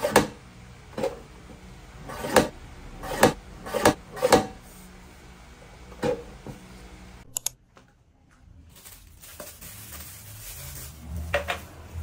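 Guillotine paper cutter's blade arm chopping down through sticker-label sheets: a run of sharp chops, about seven of them at uneven spacing over the first six seconds. After a short gap, softer handling noises follow, with one knock near the end.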